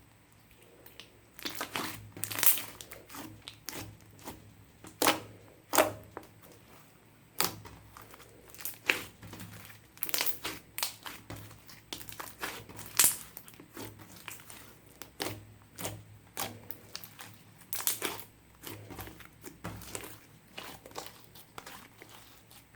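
Clear slime, mixed with makeup and glitter, being squished and kneaded by hand, giving irregular sticky clicks and pops with a few louder snaps. It starts about a second and a half in.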